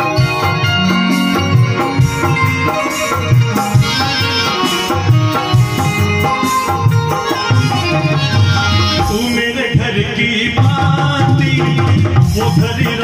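Live Indian devotional music: harmonium and bulbul tarang playing a melody over a steady hand-drum beat on dholak.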